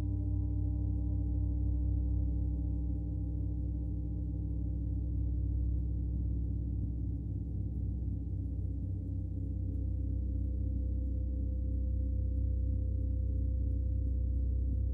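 A large gong ringing in a sustained, low drone of many overlapping steady tones. No fresh strike is heard.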